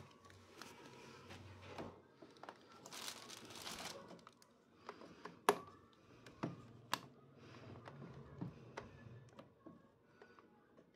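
Clear plastic packaging bag around a new air fryer crinkling and rustling as it is handled, loudest about three to four seconds in. Several sharp clicks are scattered through it, the two loudest past the middle.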